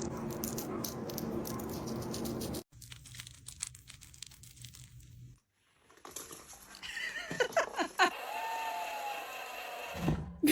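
Hamsters rustling and scratching, with fast crinkling clicks, across a few short clips cut one after another; near the middle a clip brings short pitched sounds and a brief gliding tone.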